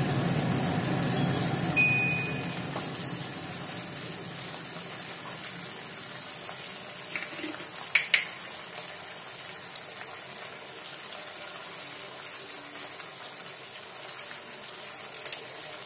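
Onion, capsicum and sauce mixture sizzling in a kadai. The sizzle is louder for the first couple of seconds, then settles to a steady lower hiss, with a few faint clicks.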